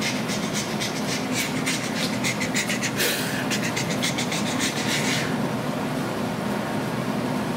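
A plastic bottle of shake-and-pour pancake mix being shaken hard, its contents rattling and sloshing about five times a second; the shaking stops about five seconds in. A steady hum and hiss runs underneath.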